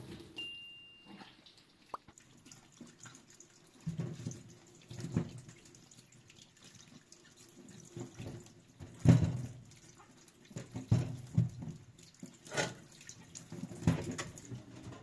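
Water splashing and dripping, with irregular knocks and clatters of handling about every second or two.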